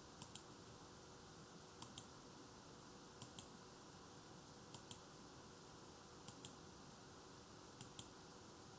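Six pairs of short, sharp clicks, about one pair every second and a half, from computer controls being operated, over a faint steady hiss and hum.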